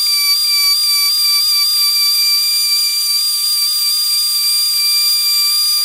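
Die grinder with a carbide ball burr spinning at a steady high-pitched whine, cutting a shallow V-groove along a crack in a polyethylene washer reservoir to prepare it for plastic welding.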